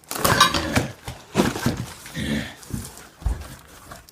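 Styrofoam packing being pulled and rubbed against a cardboard box, squeaking and scraping in several short bursts, with a dull thump a little after three seconds in.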